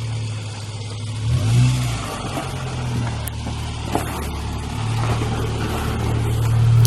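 A vehicle engine running with a steady low hum, with a short sharp click about four seconds in.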